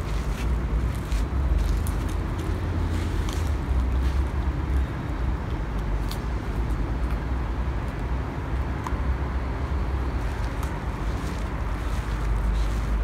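A border collie and a papillon gnawing calf shin bones: scattered, irregular crunches and clicks of teeth on bone, over a steady low rumble.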